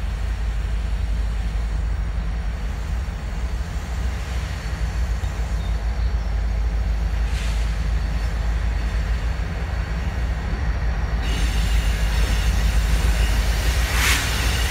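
BNSF diesel locomotive approaching: a steady low engine rumble that grows gradually louder, with brief hissing near the end.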